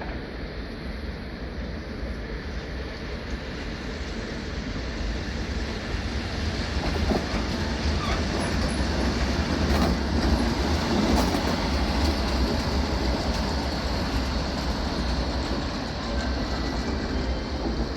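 A passing train running on the rails, its rumble swelling to a peak a little past the middle and then easing off slightly.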